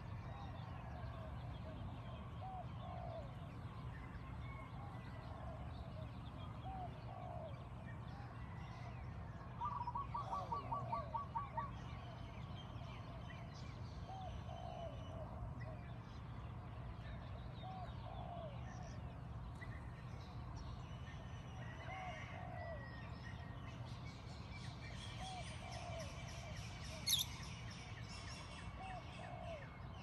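Morning chorus of birds calling in the trees: a short low call repeated every second or two throughout, many fainter higher chirps, a loud quick run of about ten notes about ten seconds in, and a sharp high call near the end, over a steady low background hum.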